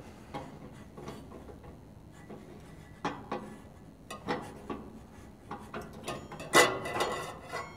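Stainless steel ash cup being twisted off the underside of an Oklahoma Joe's Rider DLX pellet grill with an oven mitt: scattered metallic clicks and scrapes from the cup turning on its threads, the loudest with a brief ring about six and a half seconds in.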